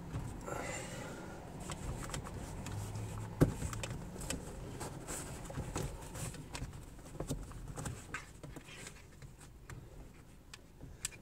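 Soft rustling and scattered small clicks of a radar detector's power wire and plastic headliner trim being handled as the wire is tucked in, with one sharp click about three and a half seconds in.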